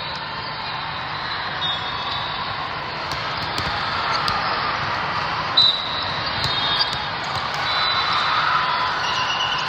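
Echoing hubbub of a crowded indoor volleyball hall, with brief high squeaks and whistles from the courts. A single sharp volleyball strike stands out about five and a half seconds in.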